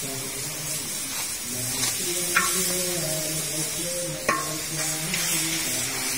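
A metal spatula stirring and scraping chunks of raw meat in a large steel wok over a steady frying hiss, with two sharp scrapes of metal on metal, about two and a half and four and a half seconds in.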